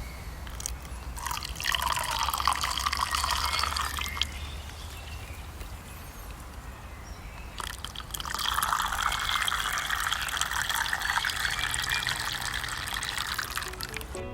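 Liquid poured into a container in two pours, a short one about a second in and a longer one starting about halfway through.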